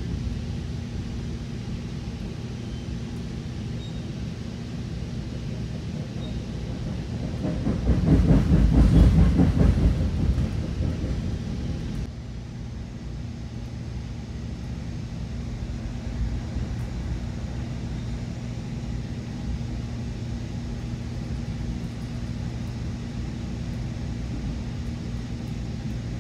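Metra Nippon Sharyo bi-level commuter coach riding along, heard from inside the car: a steady rumble with a low hum. About eight seconds in, the rumbling and rattling grow louder for some three seconds, then settle back.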